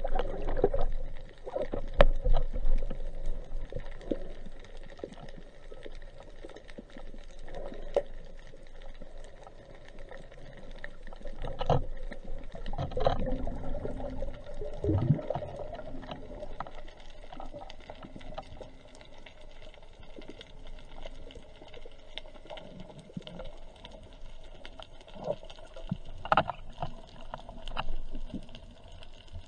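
Underwater sound picked up by a camera in a waterproof housing: a muffled, steady wash of water with scattered sharp clicks and knocks, and a few louder swells of water noise.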